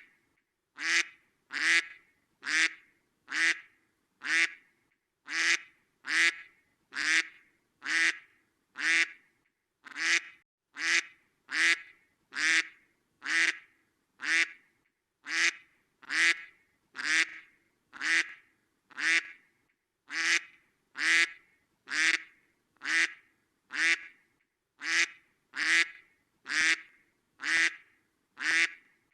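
A duck quacking over and over at an even pace, about two short quacks a second, each one much alike with a brief silence between.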